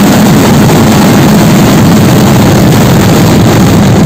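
Dense barrage of festival fireworks at close range, the explosions merged into one continuous loud rumble with no break.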